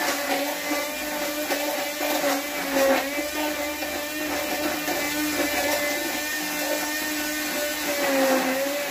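Handheld electric stick blender running steadily in a plastic jug, puréeing salmon pieces with double cream into a sauce. Its motor hum holds one pitch, with a brief dip near the end as the load shifts.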